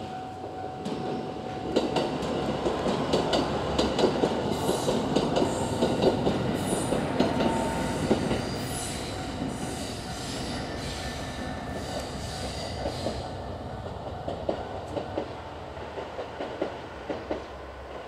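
Three-car KiHa 189 series diesel limited express train (Hamakaze) passing, its wheels clacking over the rail joints. It is loudest from about two seconds in, then eases off, with another string of clacks near the end.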